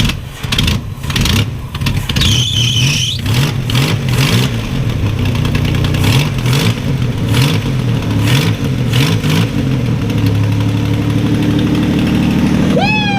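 1985 GMC S15 pickup engine, freshly started after sitting about a month, running while the throttle is blipped up and down repeatedly. About ten seconds in it settles into a steady idle.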